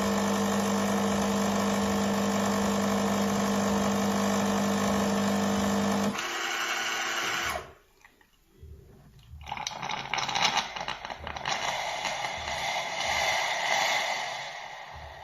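KRUPS Arabica Digital bean-to-cup coffee machine at work: a steady motor hum that changes about six seconds in and stops soon after. After a short pause a rushing noise with crackles follows, fading near the end.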